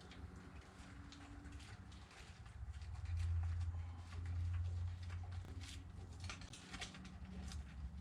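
Scattered light clicks and taps of hands and tools working on a truck's brake assembly, over a low steady hum that swells twice in the middle.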